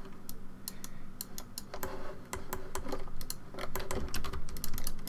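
Computer keyboard keys and mouse buttons clicking irregularly, several clicks a second, as keyboard shortcuts and mouse strokes are used on a computer.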